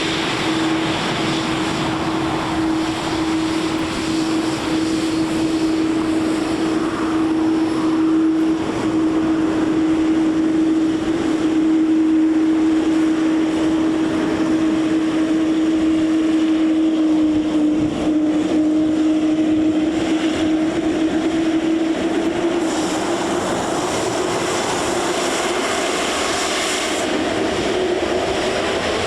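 Boeing 787 Dreamliner's jet engines running with a loud roar and a steady whine. The whine rises in pitch over the last few seconds.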